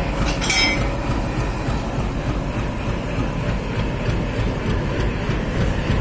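Steady rumble of a passenger train rolling slowly along the track, heard from on board, with a brief metallic screech about half a second in.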